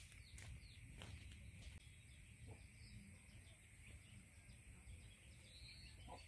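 Near silence: faint outdoor ambience with a few faint bird chirps over a steady high hiss.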